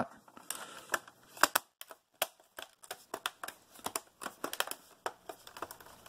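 The plastic cover of an Acer Veriton N281G mini PC being fitted back onto its case and pressed shut: a run of irregular sharp plastic clicks and light scraping as the cover's clips are worked into place.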